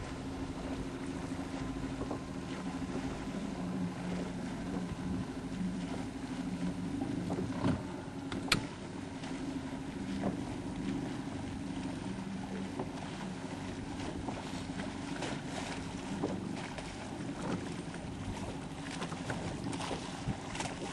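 A sailboat under way: wind and water noise with a steady low hum underneath, and one sharp click about eight and a half seconds in.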